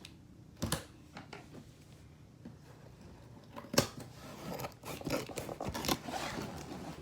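A shipping package being opened by hand: a few sharp clicks, the loudest about four seconds in, then a couple of seconds of scraping and rustling.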